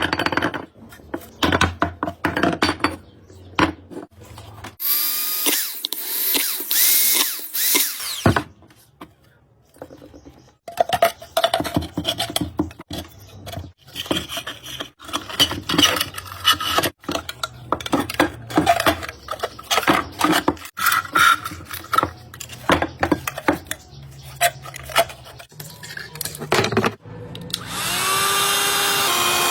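Tool work on a tap fitting: a run of irregular knocks, clicks and clatter, with stretches of power-tool noise. Water gushes from the tap twice for a few seconds, about five seconds in and again near the end.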